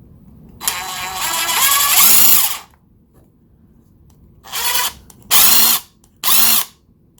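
Workpro 20V cordless impact wrench's brushed motor free-spinning with no load, worked on its variable trigger. It does one longer run that climbs in pitch over about two seconds, then three short bursts, each whirring up and dropping away.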